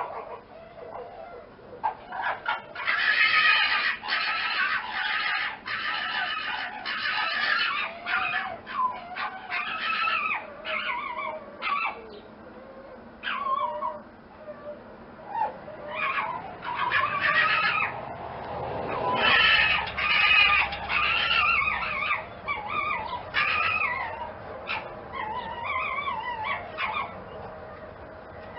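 A fox calling: many short, high yaps and cries in quick runs, with brief pauses between them.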